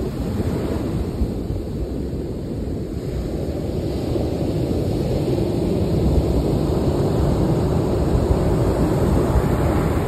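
Surf washing on a beach, mixed with wind rumbling on the microphone: a steady low noise with no distinct events, slowly growing louder and loudest near the end.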